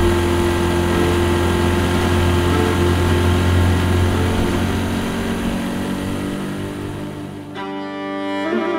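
Motorboat engine running steadily with a low hum, fading down over several seconds. About three-quarters of the way through it cuts to music with a saxophone lead.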